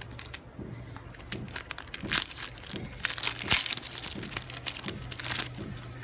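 Match Attax trading-card booster pack wrapper crinkling and tearing as it is ripped open by hand, a quick run of crackles loudest in the middle.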